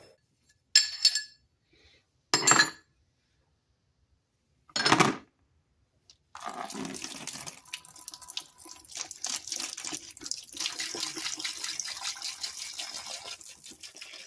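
Three short knocks, then liquid running and splashing for about eight seconds before it stops abruptly.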